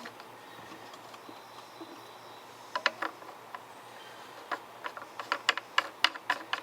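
Light, sharp clicks and taps of small chainsaw parts being handled and worked by hand: a few about three seconds in, then a quicker irregular run of them from about four and a half seconds.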